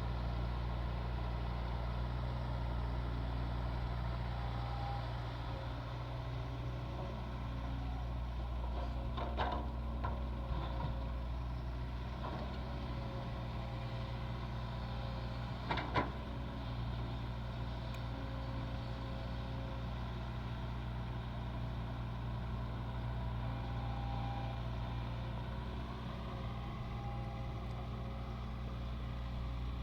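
Heavy diesel earthmoving machinery running steadily with a low engine drone, with a few short clanks about ten seconds in and a sharper one about halfway through.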